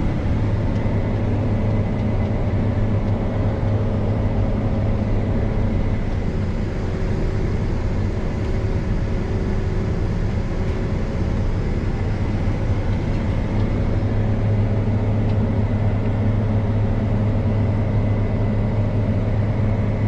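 Combine harvester's engine running steadily: a constant low drone that holds the same pitch throughout.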